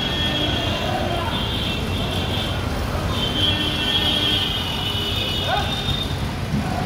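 Steady traffic noise of a busy city street, with scattered voices of people.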